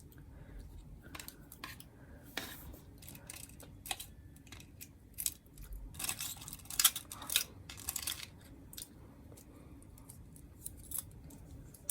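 Plastic nail tips being handled and fitted onto a silicone practice hand: irregular light clicks and short scrapes, busiest about six to eight seconds in.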